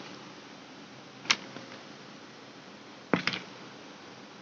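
Plastic blister packs of makeup being handled: a sharp click about a second in, then a pair of clicks and rattles near the end, over a steady hiss.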